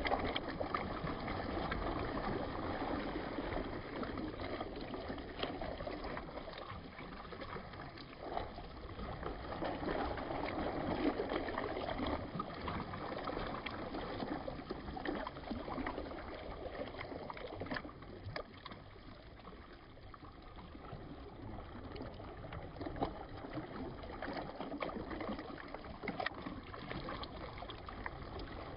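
Water of a mountain reservoir moving at its edge: a steady wash with small splashes now and then, swelling and easing every few seconds and a little quieter in the second half.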